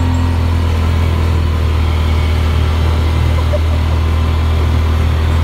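Yamaha Wolverine four-seat side-by-side's engine running at a steady speed as it drives across sand, a constant low drone heard from inside the cab with no revving.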